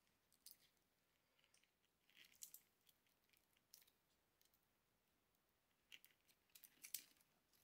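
Near silence, with faint scattered clicks and rustles from fine wires and the twisted shield screen of a DRO scale cable being handled at its stripped end.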